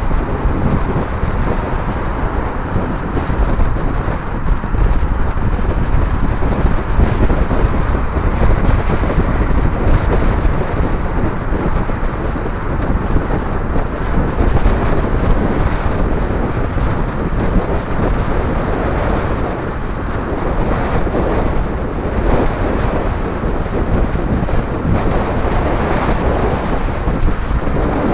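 Steady, loud wind buffeting the microphone of a camera on an electric bike at freeway speed (about 60 mph), mixed with road and passing-traffic rumble.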